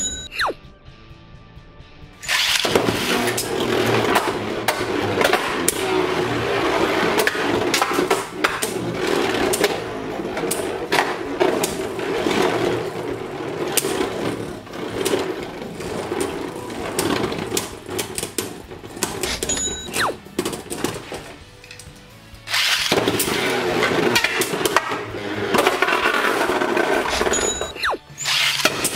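Beyblade Burst tops (Glide Satan and World Spriggan) spinning and grinding across a plastic stadium floor, with rapid clashing clicks and knocks as they collide. The tops are launched about two seconds in; after a short lull, a new round starts about 23 seconds in.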